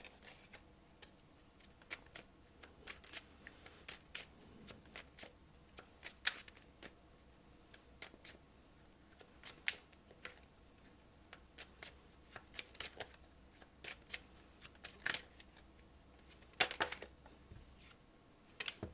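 A deck of tarot cards shuffled by hand: a run of irregular soft snaps and flicks, several a second, with a few louder clusters.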